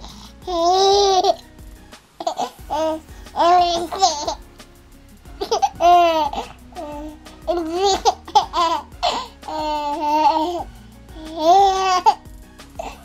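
A baby laughing in about eight short bouts of high-pitched giggles, with babbling in between.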